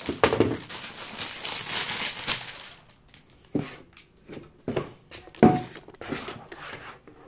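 Thin plastic wrapper crinkling as it is pulled off a plastic toy. After that, a few separate knocks and taps as the plastic toy is handled and set down on the table.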